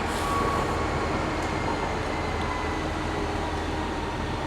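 Train running, a steady low rumble with a faint high whine that holds its pitch.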